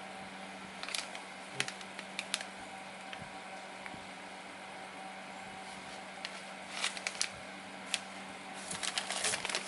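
Bagged resin model-kit parts being handled: scattered crinkles of plastic bags and light clicks, busier near the end, over a steady low hum.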